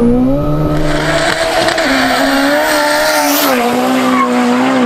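Fiat Uno Turbo's 1301 cc turbocharged four-cylinder revving hard as the car pulls away, climbing at first and then held at high revs with small dips in pitch, with a thin high turbo whistle on top that fades after about three and a half seconds. Some tyre squeal may be mixed in.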